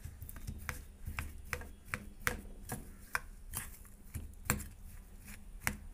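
A spoon clinking and scraping against a stainless steel bowl in quick, irregular strokes, about two or three a second, as mashed potato and spices are stirred together.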